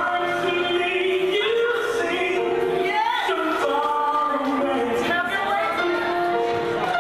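Gospel song with a lead vocal holding long notes and sliding between pitches over accompaniment.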